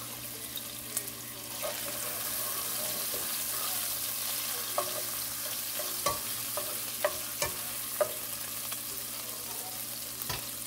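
Bacon pieces sizzling steadily in hot oil in a nonstick pot, with a few sharp clicks of a utensil stirring them against the pan, mostly between about five and eight seconds in.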